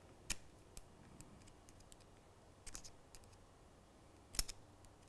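Small screwdriver working a tiny stainless machine screw into a plastic model-railway coach bogie: a few faint, sharp clicks of metal on plastic, a short cluster near the middle and the loudest about four and a half seconds in.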